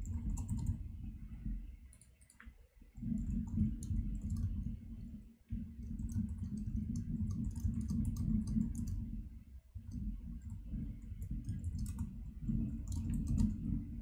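Typing on a computer keyboard: irregular key clicks over a low, dull thudding that stops briefly a few times.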